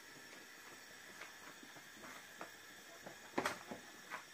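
Whole spices faintly crackling and ticking in oil in a metal pan, with a few sharper clicks about three and a half seconds in.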